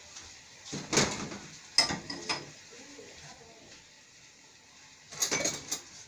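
Dishes and glassware knocking and clinking as they are handled and lifted out of a dishwasher rack: a few separate knocks with quiet between, and a quick cluster of them near the end.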